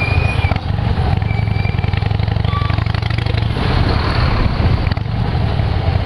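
Harley-Davidson V-twin motorcycle engine running steadily under way, a dense low pulsing exhaust note. It runs through its unmodified exhaust, which the owner finds weak for a Harley.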